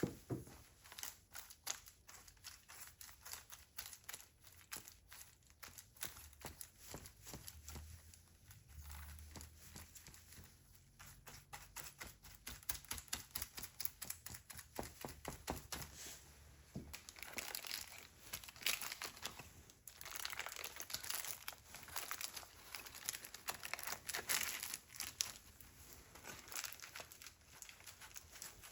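Hand scrubbing on a Stihl chainsaw guide bar: rapid scratchy strokes of abrasive on metal, coming in louder clusters in the second half.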